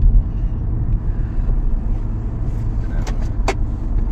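Inside the cabin of a Maruti Suzuki Grand Vitara SUV moving at about 55 km/h: a steady low road and tyre rumble. Two short clicks come near the end.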